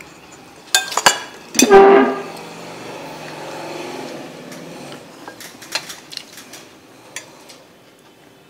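Clicks and clinks of a spoon against ceramic bowls and plates, with a loud horn-like honk about two seconds in that fades away over the next few seconds.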